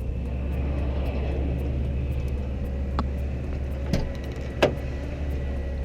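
Bucket truck engine idling with a steady low rumble. A few sharp clicks or knocks come through it at about three, four and four and a half seconds in, the last one the loudest.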